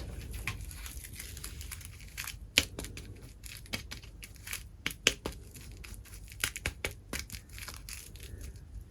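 Packaging being handled and torn open: a dense run of sharp crinkling and tearing crackles, with a few louder snaps.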